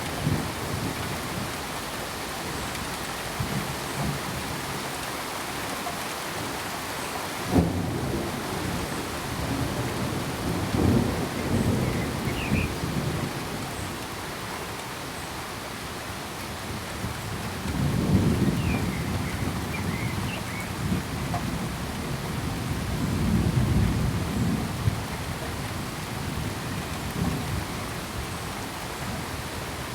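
Steady rain with thunder: a sharp clap about a quarter of the way in, then several low rolling rumbles that swell and fade over the rest of the stretch.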